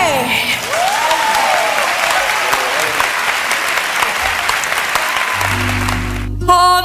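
Audience applauding, with a voice calling out over the clapping about a second in, just after a wavering sung note slides down and stops. Low instrument notes come in about five seconds in as the music starts again.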